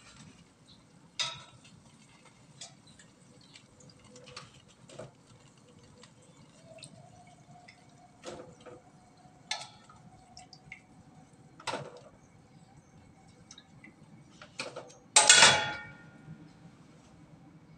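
Metal tongs clinking against a steel wok and a wire rack as fried bomboloni doughnuts are lifted out of the oil, a sharp click every second or two. About fifteen seconds in comes a loud metallic clatter as the tongs are laid on the wok's rim.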